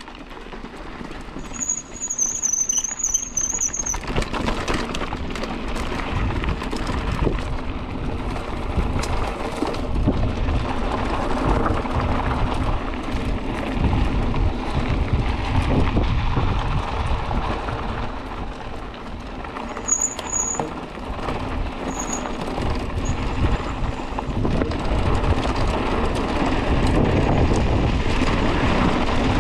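Mountain bike descending a loose dirt trail at speed: knobby tyres rumbling and crunching over dirt and gravel, the bike rattling over the bumps, and wind buffeting the microphone. A high wavering brake squeal rings for about two seconds near the start and comes back briefly twice about two-thirds of the way through.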